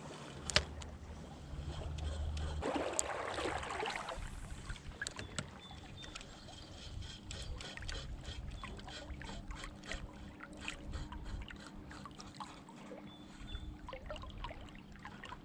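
Flowing creek water trickling and gurgling, with a brief louder rush of water noise about three seconds in and many small ticks throughout.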